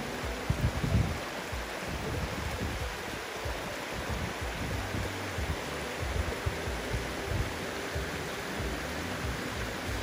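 Shallow mountain creek running over mossy rocks in small riffles: a steady rush of water. A brief low rumble on the microphone comes about a second in.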